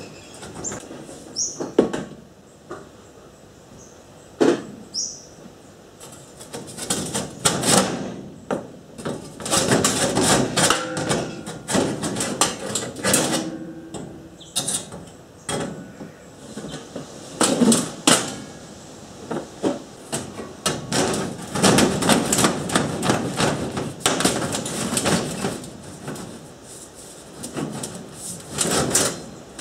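Irregular metallic clicks, knocks and scraping: tin snips trimming a hole in corrugated steel sheeting, then a sheet-steel flue elbow being knocked onto the pipe and worked through the hole.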